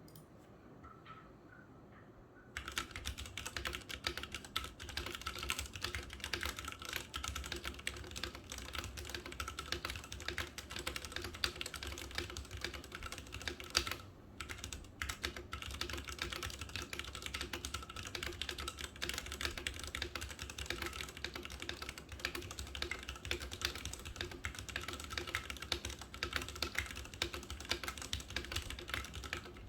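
Fast, continuous typing on a Ducky One 2 SF mechanical keyboard with linear Cherry MX Red switches, starting about two and a half seconds in, with a brief pause about halfway through.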